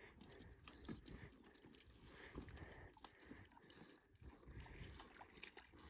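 Faint crunching of a horse chewing grass.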